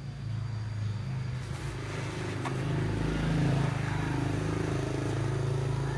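A motor vehicle's engine running close by, its low hum growing louder over the first few seconds and staying up to the end.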